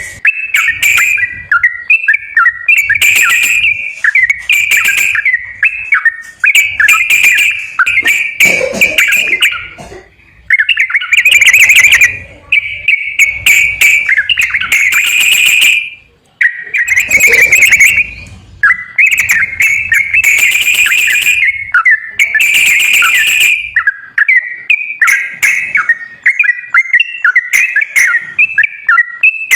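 Yellow-vented bulbul song: loud, bubbling, chattering whistled phrases, each a second or two long, repeated over and over with short breaks between them. It is played as a lure recording to coax caged bulbuls into singing.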